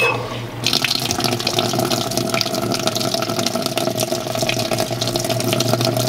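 Giantex EP23113 portable washing machine beeping once as it is started, then water pouring into its tub from the inlet about half a second later: the machine filling for a fast-mode wash.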